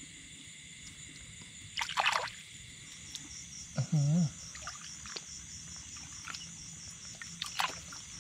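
Hand splashing in shallow muddy paddy water while grabbing a rice-field crab, with sharp splashes about two seconds in and near the end, over a steady high insect chorus. A short low call sounds about four seconds in.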